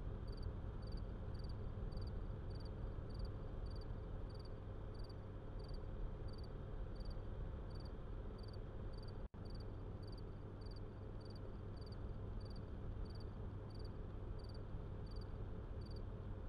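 Crickets chirping steadily in an even rhythm, a little under two chirps a second, over a low background hiss and rumble, with a momentary break about nine seconds in.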